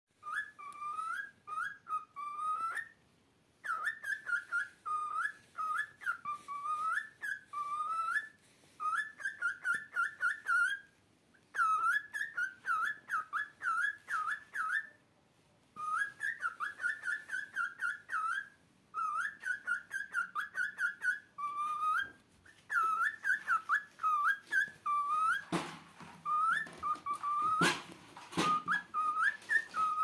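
Cockatiel whistling its song: quick runs of short whistled notes that rise and dip, sung in phrases of a few seconds with brief pauses between them. A few sharp clicks come near the end.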